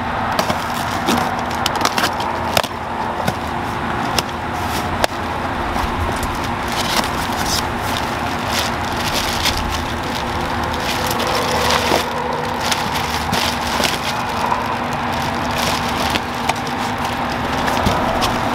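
A cardboard box being cut open and unpacked by hand. First a knife slices through the packing tape, then the cardboard flaps are handled and a plastic bag crinkles as the wrapped battery pack is lifted out. There is dense crackling with many small clicks throughout.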